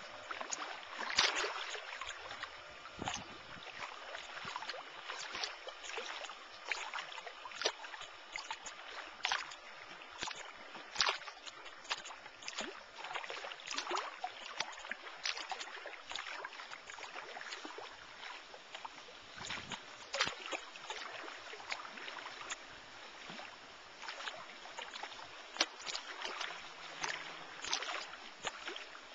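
Choppy lake water lapping and splashing, with irregular slaps every second or so over a steady wash of noise.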